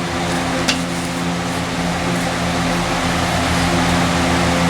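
Steady machine hum with an even hiss, like a running fan, with one small click about 0.7 seconds in.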